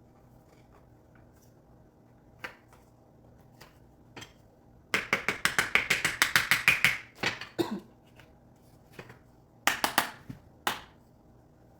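Rapid run of sharp clicks, about eight a second, lasting some two seconds, from hand work on a wooden plant stand being assembled. A few single clicks and a brief second run follow near the end.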